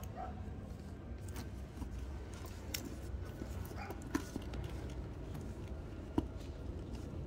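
Handling sounds of a Louis Vuitton Speedy 30 handbag's metal zipper pulls and hardware: a few light, sharp clicks as the interior zip pocket is opened, over a steady low hum.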